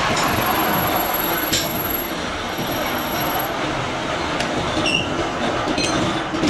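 Metal lathe running and cutting a steel sprocket blank, a dense, harsh metal-on-metal noise with a few faint clicks. A thin high whine sits over roughly the first half.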